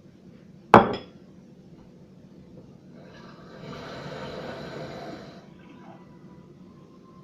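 A sharp knock about a second in, as of a hard container set down, then running water for about two and a half seconds in the middle.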